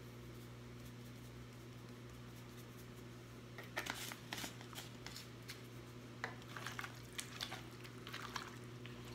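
Soft clicks and rattles of a spice shaker being shaken over raw chicken tenders, then wet squishing as hands toss the chicken in a plastic bowl, starting a few seconds in. A steady low hum runs underneath.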